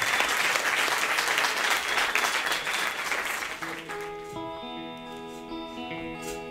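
Audience applause that fades away over about three and a half seconds, then a live band starts a song's instrumental intro with a run of steady held notes.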